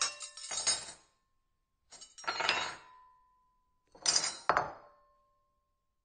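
Silverware clinking against a plate in three short bursts about two seconds apart, each leaving a ringing tone that dies away.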